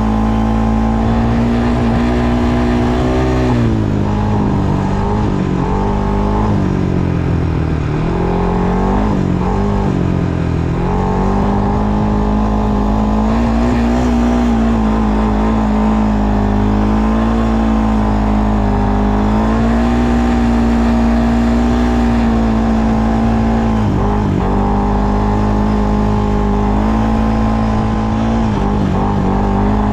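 ATV engine running under way, its pitch dipping and rising several times with the throttle a few seconds in, then holding fairly steady. There are a couple of brief knocks near the end.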